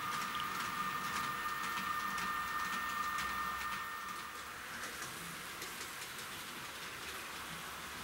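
Model electric locomotive of the SNCF BB 16000 class running on track: a steady high motor whine with light clicking from the wheels. About four seconds in the whine fades, leaving a soft hiss.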